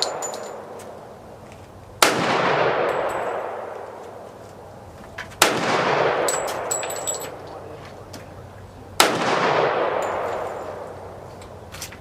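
Colt 1911 pistol in .45 ACP firing three single shots about three and a half seconds apart. Each shot is a sharp crack with a long echoing tail. A few light metallic clinks come between the second and third shots.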